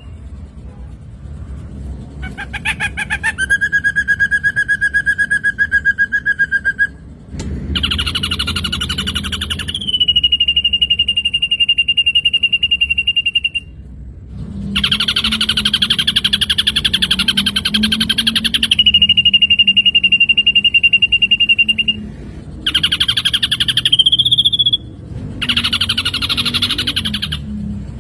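Ashy drongo singing: long, steady whistled notes alternating with rapid buzzy trills, in phrases several seconds long with short pauses between them. One trill near the end finishes on a rising note.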